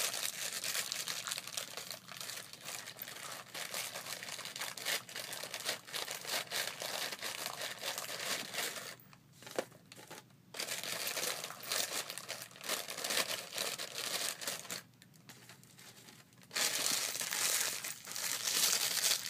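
Crinkling and rustling of a sleeve of saltine crackers being opened and handled as crackers are drawn out, with two short lulls, about nine and fifteen seconds in.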